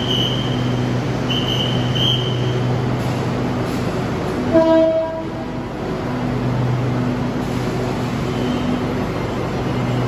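SRT Red Line electric commuter train standing at the platform, its onboard equipment giving a steady low hum. About four and a half seconds in, the horn sounds once briefly, the loudest sound; two short high beeps come near the start.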